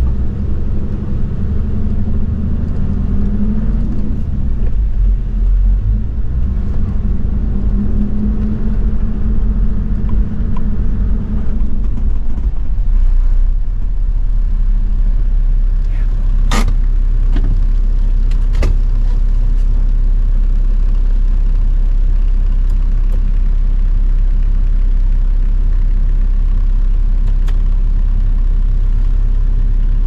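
Toyota Land Cruiser 70's 1HZ straight-six diesel engine running while the truck is driven on a dirt road, the engine note wavering under load for about the first twelve seconds, then settling lower and steady. Partway through, two sharp knocks come about two seconds apart.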